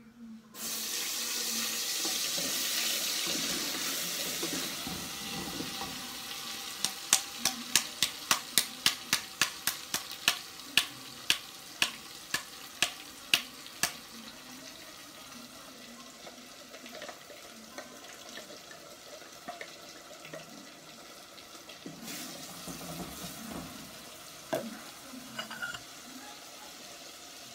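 Blended curry spice paste hitting hot oil in a pot and sizzling loudly, the sizzle fading slowly. Then about twenty sharp taps, about three a second slowing to two, as the plastic blender jar is knocked against the metal pot to empty it, followed by quieter frying and a few knocks.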